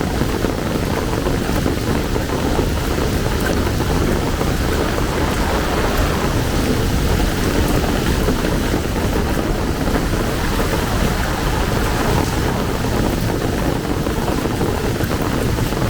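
Heavy rain pouring steadily, a dense even hiss with a strong low rumble underneath.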